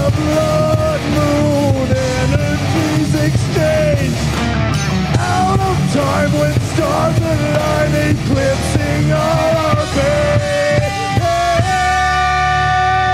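A live rock band playing: electric guitars, bass and drums, with a lead melody bending between notes and one long held note near the end.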